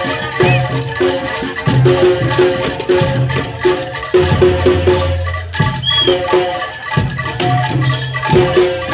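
Javanese jaranan gamelan music played loud over a speaker stack: fast, repeating metallic mallet notes over steady drum strokes, with a long low note about four seconds in and a short high wavering tone near six seconds.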